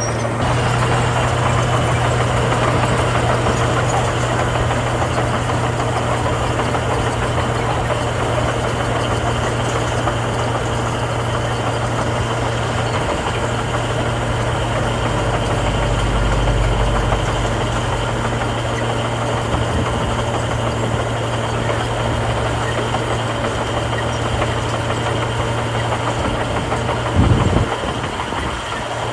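Heavy diesel engine of earthmoving machinery running steadily with a low hum. A deeper rumble joins for a couple of seconds midway, and there is a short loud knock near the end.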